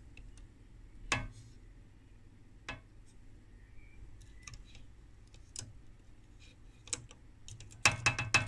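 Scattered light clicks and taps of a metal-framed circuit-board module being handled and turned over, with a quick run of clicks near the end.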